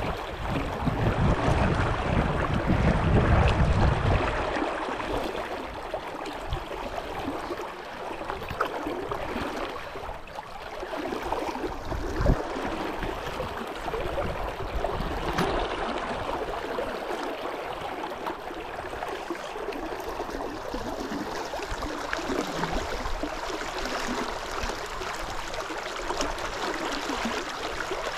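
Brook water rushing steadily over the pool. A low rumble runs under it for the first four seconds, and there is a single thump about twelve seconds in.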